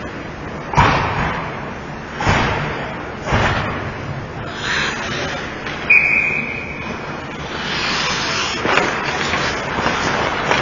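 Ice hockey game sounds on the rink: three sharp knocks in the first few seconds, then a short, steady, high referee's whistle blast about six seconds in, with scraping and rushing noise afterwards.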